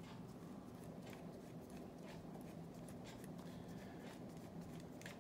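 Faint, irregular small ticks and scrapes of a hand screwdriver turning the drag-knob screw into the shaft of a die-cast fly reel, over a low steady hum.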